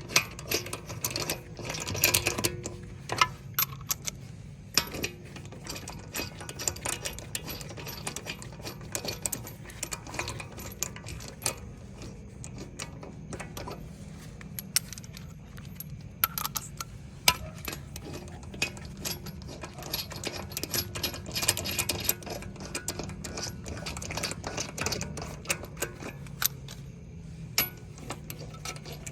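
Lug nuts being threaded onto the wheel studs by hand, with frequent irregular light metallic clicks and clinks, over a low steady hum.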